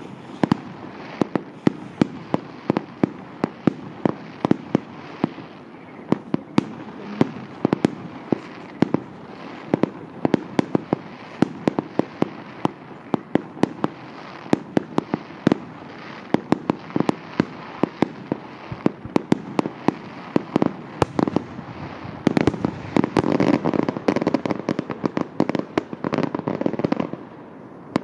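Fireworks display: shells bursting in quick, irregular succession, sharp bangs several times a second. Near the end the bangs run together into a denser stretch of crackling.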